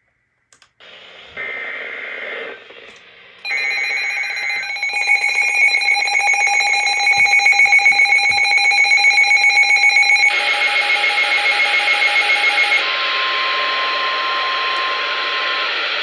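Midland NOAA weather alert radio sounding off for a severe thunderstorm warning: after a click or two, a loud pulsing electronic alarm of several shrill tones plays for about seven seconds. It then gives way to the broadcast's buzzy data bursts and a steady single-pitch warning alert tone.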